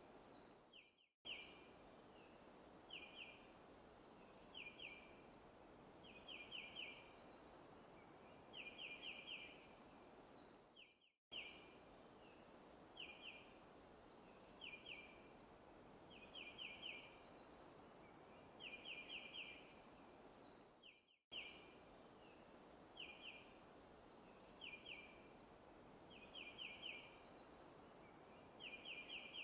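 Faint forest ambience: a bird chirping in short groups of one to four quick high notes about every two seconds over a soft steady background hiss. The sound cuts out for a moment about every ten seconds, where the looped recording restarts.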